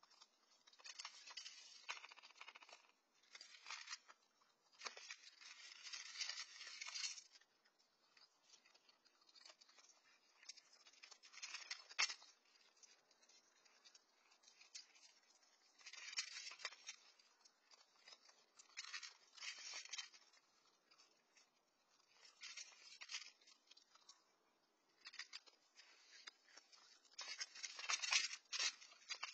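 Raccoons chewing and crunching dry cat kibble from a metal pan, in irregular bursts of crackling with small clicks. The loudest rustling comes near the end, as a raccoon's fur brushes against the camera.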